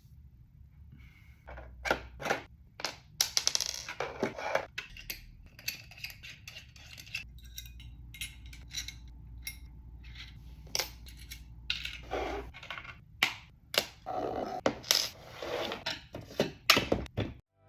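Small parts and tools being handled while a 3D printer kit's electronics are assembled: scattered irregular clicks, clinks and light scrapes of screws, metal and plastic pieces.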